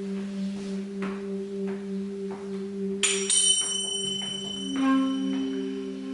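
Free-improvised ensemble music: low sustained tones with a slow pulsing waver, a bright metallic strike about three seconds in that rings on, and another ringing note entering near five seconds.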